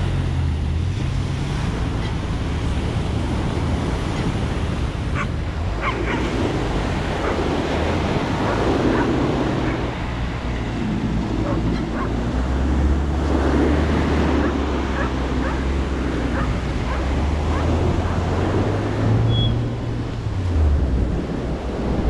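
Surf breaking and washing up the beach, with wind buffeting the microphone. Under it is the low, steady running of an off-road jeep's engine as it drives through the shallow surf.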